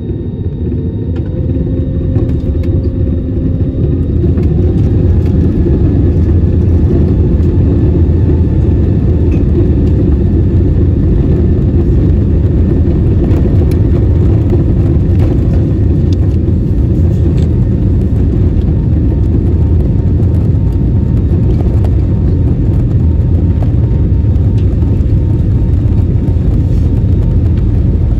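Airliner's jet engines heard from inside the cabin, spooling up over the first few seconds with a faint rising whine, then running loud and steady through the takeoff roll.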